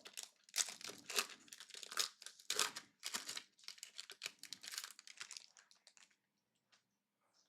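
A trading-card pack wrapper being torn open and crinkled by hand: a rapid run of crackling and tearing that dies away about six seconds in.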